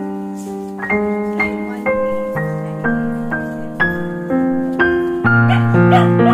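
Background music: piano or electric-piano notes and chords, struck about twice a second.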